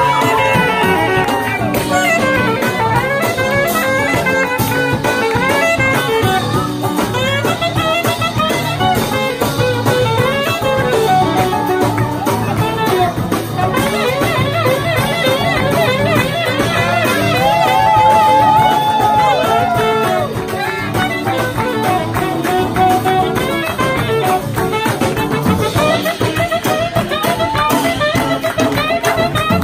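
Live samba-rock band playing, a saxophone leading the melody over the band and drums, with one long held saxophone note about two-thirds of the way through.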